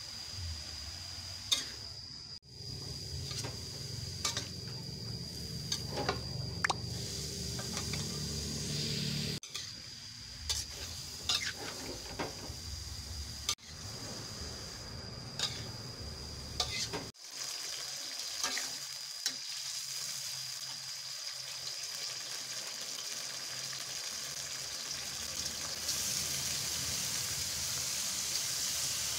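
Shredded young papaya stir-frying in a wok: a steady sizzle, with a spatula scraping and knocking against the metal pan now and then as it is stirred.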